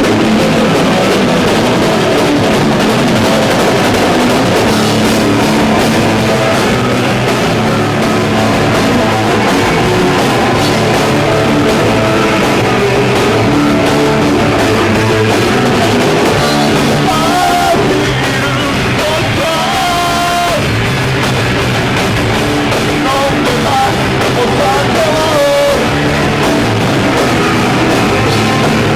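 Hardcore punk band playing live: loud electric guitar and drum kit, with singing.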